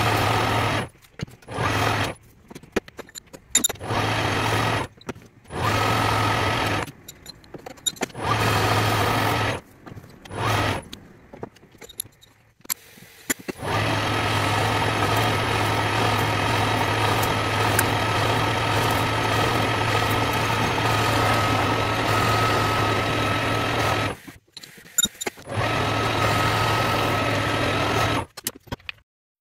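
Metal lathe running while a turning tool faces the end of a metal disc held in a three-jaw chuck: a steady motor hum with cutting noise. It starts and stops abruptly several times, then runs unbroken for about ten seconds from about fourteen seconds in, before a few more short runs.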